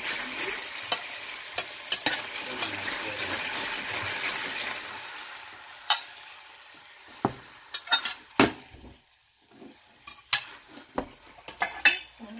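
Pork meatballs sizzling in sauce in a stainless steel sauté pan. The steady sizzle fades over the first five seconds or so, then gives way to scattered sharp pops and clicks as the sauce thickens.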